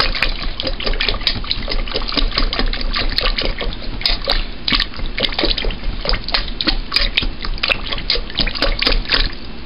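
Soaked dried fruit being mashed in a stainless steel pot with a potato masher: quick, irregular wet squelches and sloshes, with the masher now and then clicking against the pot.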